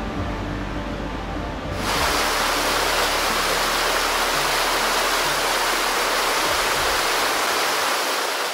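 Stream water running over rocks with faint music, then, about two seconds in, the loud steady rush of a small waterfall pouring into a pool, starting to fade at the end.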